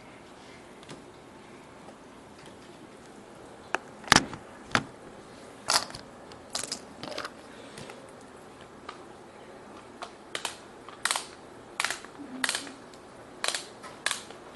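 Irregular sharp clicks and taps of small hard objects being handled: about a dozen scattered clicks starting about four seconds in, the first of them the loudest.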